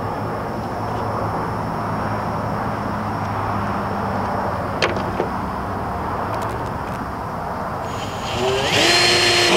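A steady low drone runs throughout. About eight and a half seconds in, a Ryobi cordless drill spins up with a rising whine and keeps running as it starts drilling through the aluminium mounting bracket.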